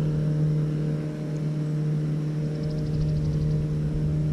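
Boat engine running at a steady, even pitch: a low, constant hum.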